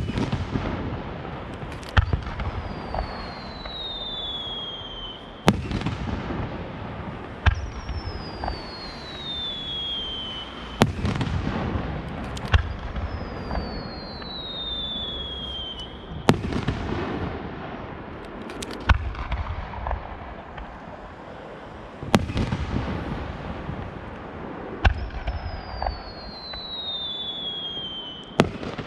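Aerial fireworks shells going off in a display: sharp bangs every two to three seconds, each with a low rumble trailing after it. Five times a shell's whistle glides down in pitch over about two seconds before a burst.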